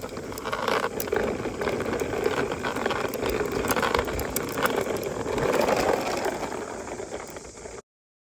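Barbie toy helicopter whirring and rattling, with scattered plastic clicks. It cuts off suddenly near the end.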